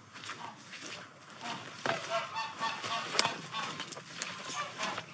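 Geese honking, a run of short repeated calls starting about a second and a half in, with a couple of sharp clicks among them.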